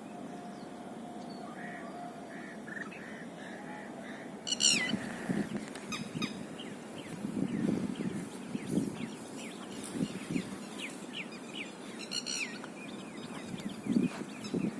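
Several birds calling: many short falling chirps, with two loud harsh calls, one about four and a half seconds in and one about twelve seconds in. There are some low bumps underneath.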